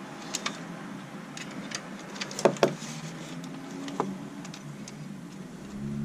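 Light clicks and taps of small hand tools and a circuit board being handled during bench soldering, with two louder clicks close together about halfway through and one more a second and a half later, over a steady low hum.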